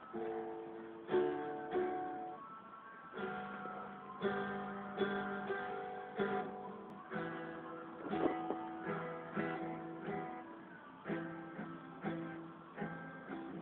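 Acoustic guitar playing chords, each one struck and left to ring, about one or two new chords a second.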